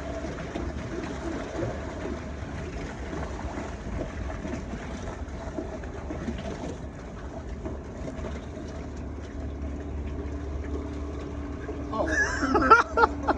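A boat engine running steadily, a low drone under a haze of outdoor noise. A man's voice comes in near the end.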